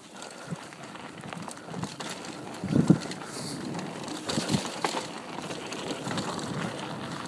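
Mountain bike riding fast down a dirt trail: tyres crunching over the ground, with the bike rattling and knocking over bumps, loudest about three seconds in.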